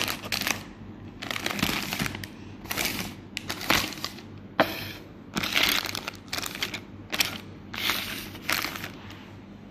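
Plastic instant-noodle packets and a sauce pouch crinkling and rustling as they are handled and shifted around, in a string of irregular bursts.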